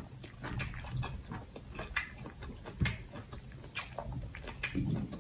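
Close-miked wet eating sounds: fingers squishing and tearing food in a plate of thick soup, with chewing, as many short irregular wet clicks and a few soft low thumps.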